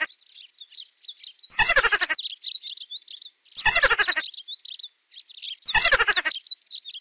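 Looped mouse squeak sound effects: high-pitched chirping squeaks, broken three times, about every two seconds, by a louder, rapid, pulsing squeal that falls in pitch.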